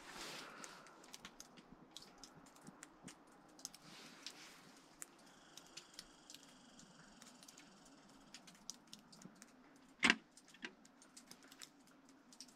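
Small clicks and rattles of hands handling a liquid-fuel camp stove and its fuel line while it is primed and lit, with a brief rustle at the start and one louder knock about ten seconds in.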